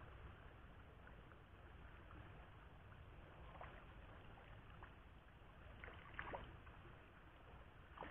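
Faint water splashes from a hooked fish thrashing at the river surface, a few short splashes over a quiet background.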